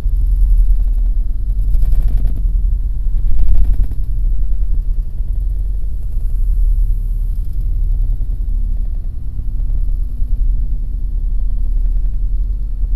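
Daihatsu Taft kei SUV driving, heard from inside the cabin: a steady low rumble of engine and road noise, with a louder patch about two seconds in and another around three and a half seconds in.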